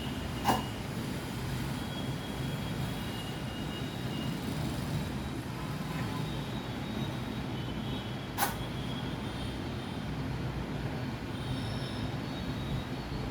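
Steady low machine hum, with two sharp clicks: one about half a second in and one about eight seconds in.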